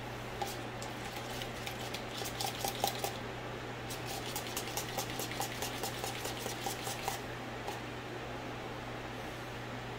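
Metal spoon scraping and clicking against a plastic sour cream tub, a quick run of small scrapes and ticks, a few a second, that stops about seven seconds in. Underneath, an electric kitchen fan hums steadily.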